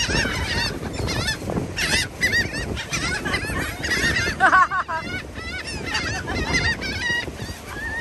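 A crowd of seagulls calling over one another while being fed: many short, repeated cries overlapping throughout.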